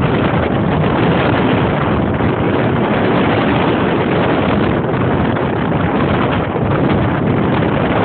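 Strong wind blowing on the microphone in a loud, steady rush, over waves breaking against a concrete seawall.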